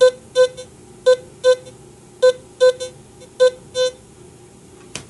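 Teknetics T2+ metal detector sounding four pairs of short beeps, all at one pitch, as a silver 1906 half-mark coin is swept past its coil in an air test; the high target ID (85) it reads marks the coin as a high-conductivity silver target. A single click near the end.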